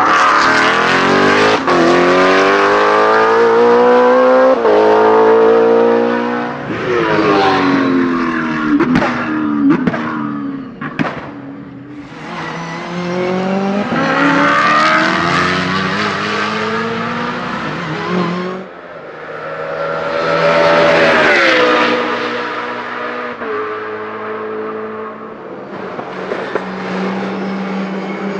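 BMW Z4 GT3 race car's V8 engine at full throttle, pitch climbing through several quick upshifts. About eight seconds in, the revs fall through downshifts with sharp cracks from the exhaust, then it accelerates hard again through more gears. It runs steadier and quieter near the end.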